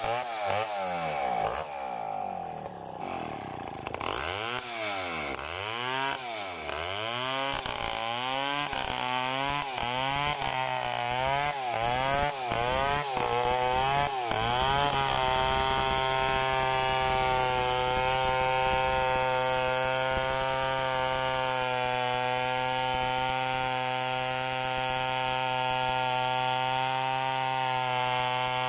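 Tecomec chainsaw ripping a coconut log lengthwise into lumber, freehand. For the first half the engine's pitch swings up and down about once a second; from about halfway through it holds a steady pitch while cutting.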